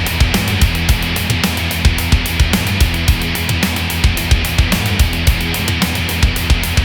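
Loud rock music with a heavy, driving drum beat and distorted guitar.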